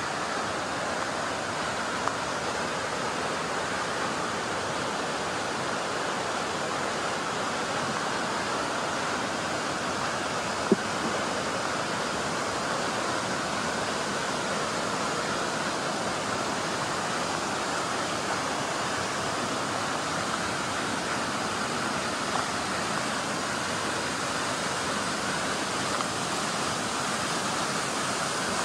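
Steady rush of falling water, a constant even roar. A single sharp click sounds about eleven seconds in, with a few fainter ticks elsewhere.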